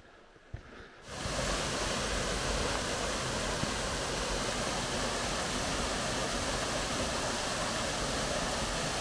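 Steady rush of a small waterfall splashing into a rock pool, cutting in suddenly about a second in.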